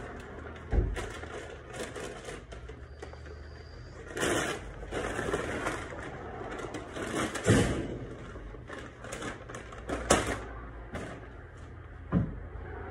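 Irregular knocks and thumps with short stretches of rustling or scraping, over a steady low hum.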